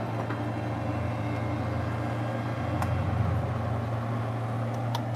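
A steady low hum runs throughout. Near the end, a hand pepper mill being twisted sets off a quick, even run of sharp grinding clicks, about five a second.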